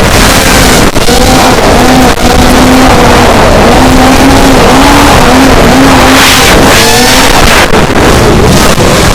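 Racing quadcopter's four Racerstar 2205 2300KV brushless motors with three-blade props buzzing loudly in flight, the pitch wavering up and down with the throttle, over heavy wind rush on the onboard camera's microphone.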